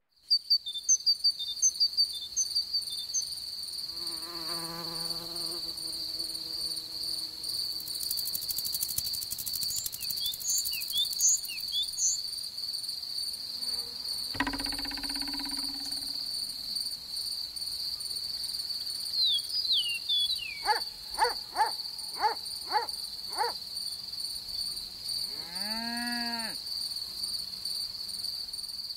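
Grass-meadow insect ambience: a steady high chirring of crickets, with quick high chirps near the start, a humming buzz about four seconds in and a short buzz near the middle. Near the end come a run of six quick rising sweeps and one arching call.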